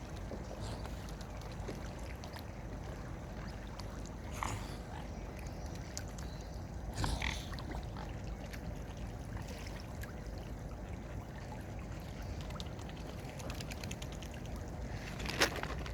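Waterfowl at a lake, with a few short sounds from the birds about four and a half, seven and fifteen seconds in over a steady background hiss.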